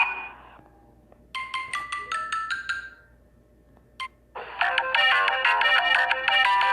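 Samsung Galaxy J2 Prime phone tones: one ringtone fades out at the start, a short notification chime of a few rising notes plays about a second and a half in, then after a click another, busier ringtone melody starts near the end and keeps playing.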